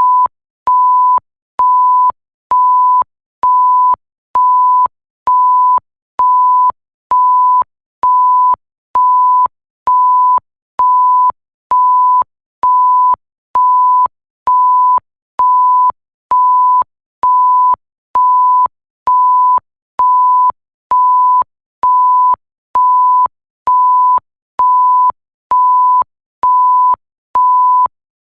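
Electronic bleep: a single pure, steady beep tone pulsing on and off evenly, about one half-second beep a second with short gaps between, each beep starting and stopping abruptly with a faint click.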